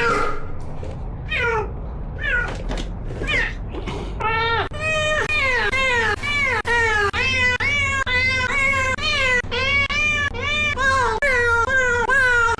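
Domestic cat meowing over and over while being bathed: a few sliding cries at first, then about four seconds in a fast run of loud meows, about two a second.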